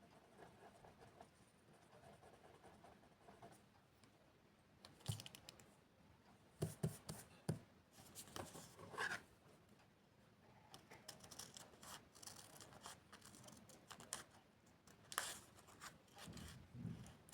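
Paper being handled and cut with scissors: faint rustling broken by a few sharp clicks and snips, with a quick cluster of them about seven seconds in and another near the end.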